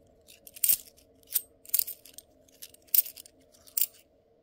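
50p coins clinking and scraping against each other as they are handled and sorted, a handful of sharp clinks at irregular moments.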